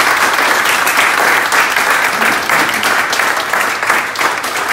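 Audience applauding: many hands clapping in a dense, steady patter that starts to die down near the end.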